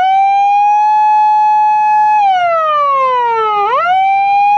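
Electronic siren of a replica Japanese police car sounding its wail. It holds a high tone for about two seconds, slides slowly down for about a second and a half, then shoots back up and holds high again.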